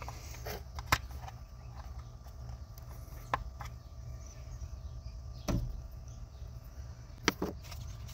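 A handful of sharp, separate clicks and knocks from hands handling plastic parts under the hood: the oil filler cap is opened and a plastic funnel is set in the filler neck. The loudest knock comes about halfway through, and a steady low hum runs underneath.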